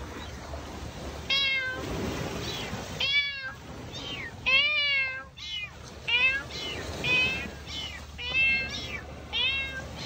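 A cat meowing over and over, about a dozen short calls, sometimes two in quick succession, each rising and falling in pitch.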